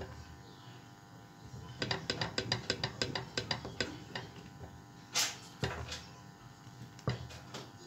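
Wooden spoon stirring thick porridge in a metal saucepan, knocking and scraping against the pan's side: a quick run of taps about two seconds in, then scattered knocks and one louder scrape about five seconds in.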